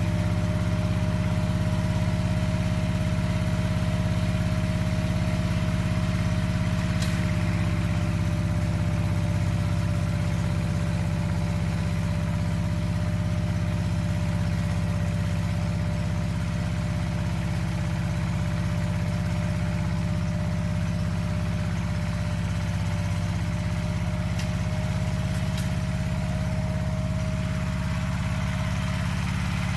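Two-wheeled power tiller's single-cylinder diesel engine running steadily with a deep, even drone.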